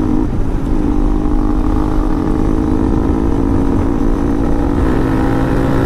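Motorcycle engine running steadily while riding at speed, over a low rumble of wind on the microphone.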